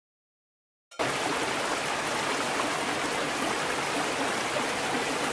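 Steady rush of cascading water, as from a fountain, starting abruptly about a second in after silence.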